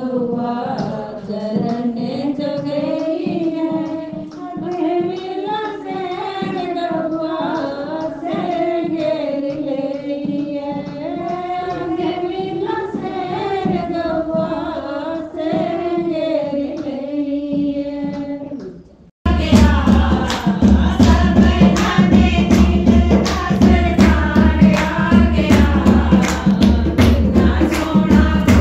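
Group of women singing a Hindu devotional bhajan (kirtan), with hand clapping. About 19 s in the sound cuts to a louder passage with a strong, steady clapped beat under the singing.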